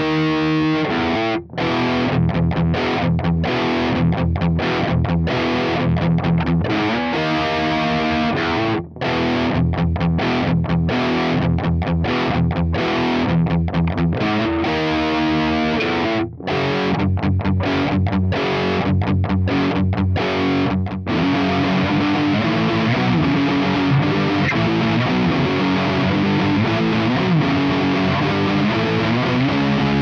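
Ibanez RG8570 J-Custom electric guitar with DiMarzio humbuckers played through a Diezel VH4 amp and a Mesa Boogie 4x12 Celestion Vintage 30 cabinet, giving a heavily distorted, high-gain tone. Choppy, rhythmic riffing with a few brief stops gives way about 21 seconds in to longer held notes, some bent in pitch.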